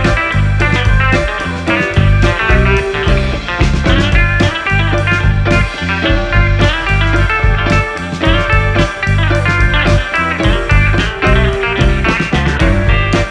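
Background rock music led by electric guitar over a steady beat.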